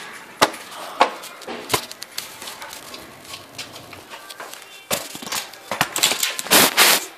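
Handling noise from a handheld camera being moved about: a few sharp knocks in the first two seconds, then rubbing and rustling that grows louder near the end.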